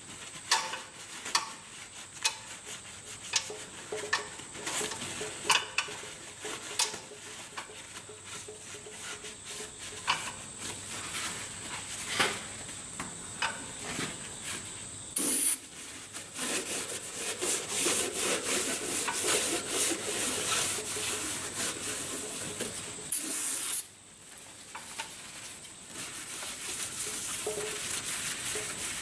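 Paper towels rubbing and squeaking as they wipe the cylinder bores and deck of a bare Cummins 8.3L engine block, with small clicks and knocks of handling. Two short hisses of an aerosol cleaner spray come about halfway through and again some eight seconds later.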